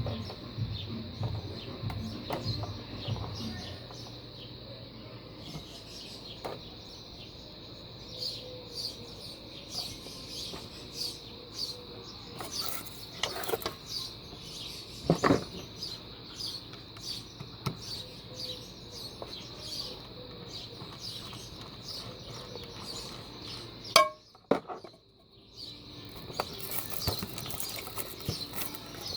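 Scattered clicks and knocks of small blender parts being handled and set down, with a sharper knock about halfway through and another near the end. Birds chirp in the background.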